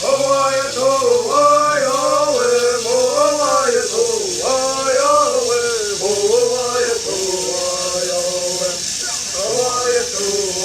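A group of men singing a Native American bird song in unison, a chant-like melody of held notes that rise and fall in short phrases, with a steady high hiss behind the voices.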